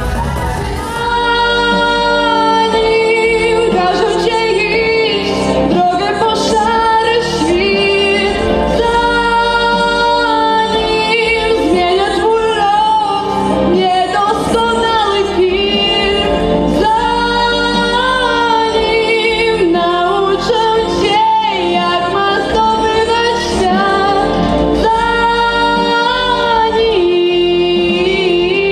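A female voice singing a melodic song over instrumental accompaniment, steady in level throughout.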